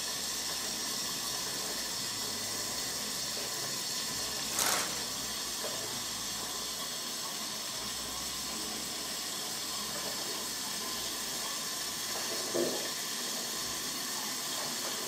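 A steady hiss, with a short rustle of plastic wrap about five seconds in and a fainter one about twelve seconds in.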